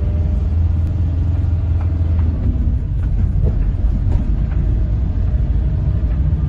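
Low, steady rumble of a moving car's engine and tyres, heard from inside the cabin.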